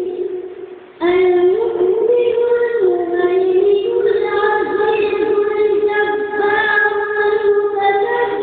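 A single high-pitched voice singing a melody unaccompanied, in long held notes that step up and down, with a brief break for breath about a second in.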